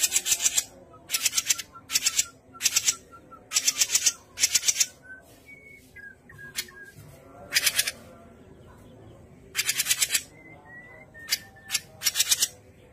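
Cucak jenggot (grey-cheeked bulbul) giving loud, harsh rattling chatter in about ten short bursts, each a rapid string of clicks, with a lull in the middle. A few faint short whistled notes fall between the bursts.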